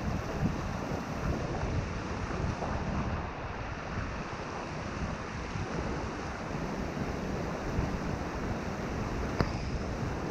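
Rapids of a rocky mountain river rushing steadily, with wind rumbling on the microphone. A single sharp click about nine seconds in.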